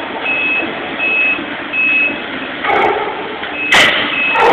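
Backup alarm on demolition machinery beeping, a steady high tone repeating about every three-quarters of a second, over the loud rumble and grinding of heavy equipment tearing into a thick steel sphere. A sharp bang comes near the end.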